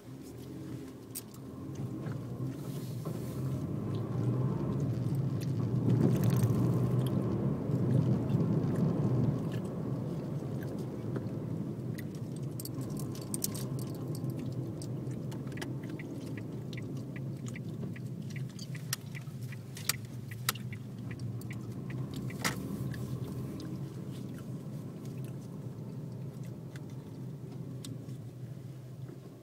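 Car engine and tyre noise heard from inside the cabin: it grows louder over the first several seconds as the car pulls away and gathers speed, then settles into a steady cruising rumble. Scattered light clicks and rattles come from inside the car.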